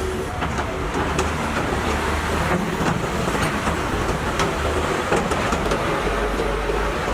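Caterpillar 320 hydraulic excavator at work: a heavy diesel engine running steadily, with irregular sharp metallic clanks.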